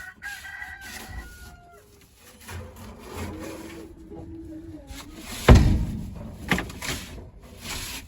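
A rooster crows once, a slightly falling call lasting a little under two seconds, followed by a lower, drawn-out chicken call. About halfway through there is a sudden loud thump, then a few lighter knocks.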